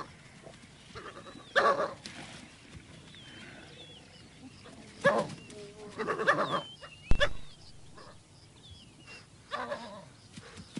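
African wild dogs giving short high-pitched twittering calls, mixed with louder yelping and snarling bursts from the fight with a lion. A single sharp thump about two-thirds of the way in is the loudest sound.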